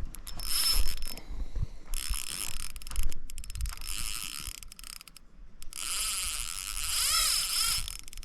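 Fishing reel paying out line under drag, a high whirring ratchet in three long runs whose pitch wavers near the end as a fish pulls line off the spool. Low bumps from handling the rod run beneath.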